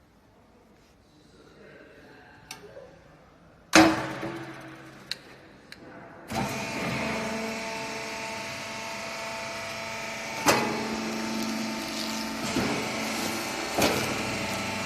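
A horizontal rag and textile baler at work: one loud bang, a couple of clicks, then about two seconds later its machinery starts up and runs steadily with a humming drone. Clunks sound now and then as it runs.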